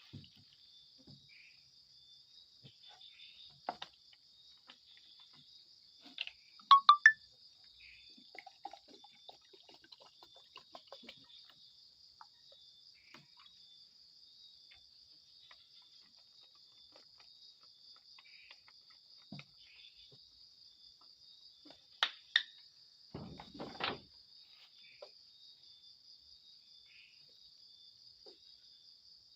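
Steady pulsing trill of night insects. Scattered sharp clicks and knocks fall over it, the loudest a quick run of three clicks about seven seconds in, with a low rustling thud near the end.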